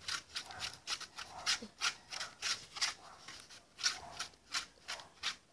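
A spoon stirring glue in a bowl, scraping in quick repeated strokes, about three a second.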